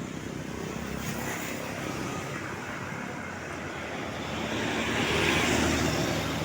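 Roadside traffic with engines running. A vehicle passes close, growing louder and loudest about five seconds in. No musical horn sounds.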